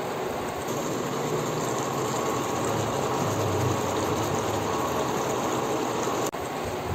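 Shrimp and vegetable stir-fry in oyster-soy sauce sizzling and bubbling in an uncovered pot, a steady dense crackle with a brief break near the end.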